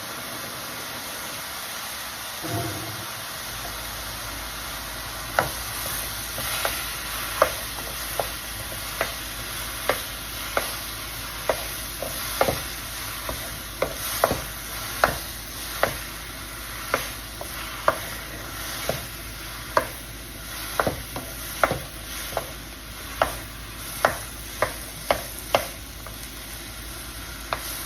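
Mushrooms, tomatoes and serrano peppers sizzling in hot oil while being stirred, with a steady hiss throughout. From about five seconds in, a utensil clicks against the pan in a steady rhythm, about one or two strokes a second.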